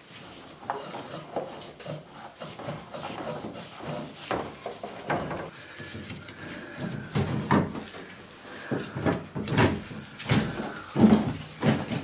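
Yellow Romex electrical cable being fished through a plaster wall and pulled out of a cut-out box opening by gloved hands: irregular scraping, rubbing and knocking, loudest near the end.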